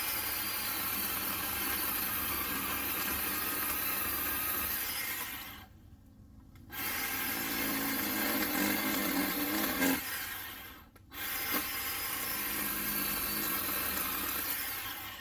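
Craftsman 10-inch 20-volt cordless chainsaw running and cutting into a small tree, triggered in three runs with short pauses between them.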